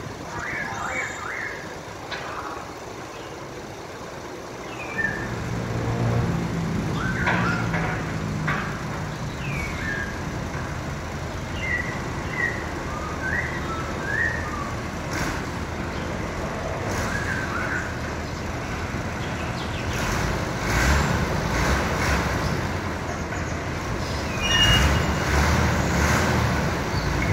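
Hydraulic pile press machine's power unit running, picking up about five seconds in and working harder from about twenty seconds on, as it presses a pile.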